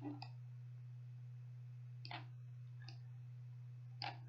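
A few faint, separate computer mouse clicks, four in all, over a steady low electrical hum.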